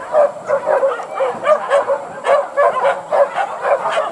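A pack of hunting dogs yelping and barking, many short high calls overlapping in quick succession.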